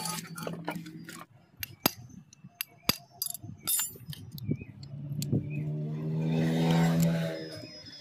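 Metal clicks and taps of a screwdriver and tools working on a motorcycle's front disc brake caliper. In the second half a louder, steady humming drone swells and fades over about two seconds.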